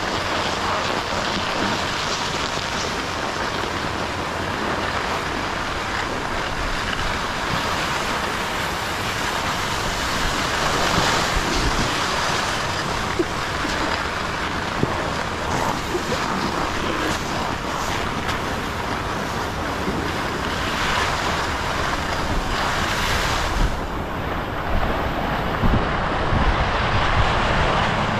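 Wind rushing over a body-worn action camera's microphone during a downhill ski run, mixed with the steady hiss of skis sliding on packed snow and a few small clicks. The highest hiss fades about four seconds before the end.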